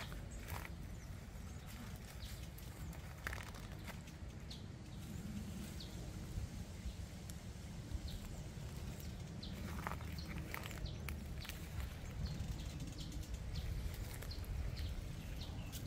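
Leafy branches rustling and small stems snapping as young leaves are pulled off a tree by hand, heard as scattered sharp clicks over a steady low rumble.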